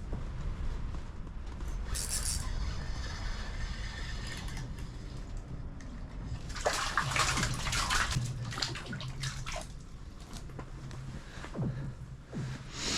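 Water sloshing and splashing in a few bursts, over a low steady hum.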